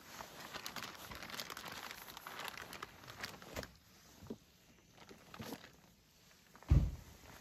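A plastic zip-top bag crinkling and rustling while wet cured salmon skein is shaken and lifted out of it, busiest in the first few seconds, then a few light clicks. A single dull thump near the end is the loudest sound.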